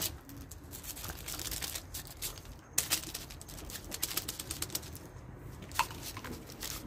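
Domestic cat eating wet cat food close up: rapid, irregular wet clicking and smacking of chewing and licking, with a couple of sharper clicks.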